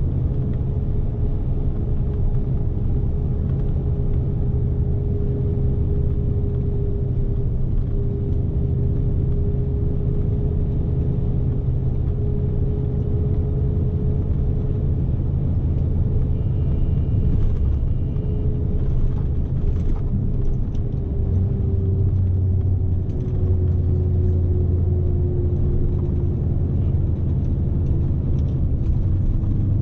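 Scania S520 truck's V8 diesel engine running steadily under load, with a continuous low rumble of engine and road noise heard from inside the cab. A brief high tone sounds about halfway through.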